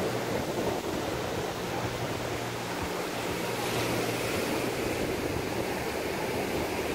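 Steady wash of ocean surf on a sandy beach, mixed with wind.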